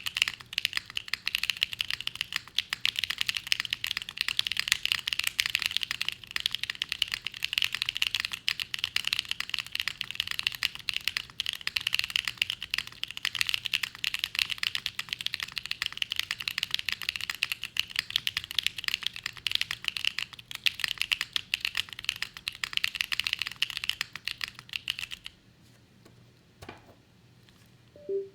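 Fast, continuous typing on a Pluto FRL mechanical keyboard with stock Gateron Blizzard linear switches, an FR4 plate and PBT keycaps: a dense stream of keystroke clacks. The typing stops about 25 seconds in, leaving a near-silent pause of about three seconds.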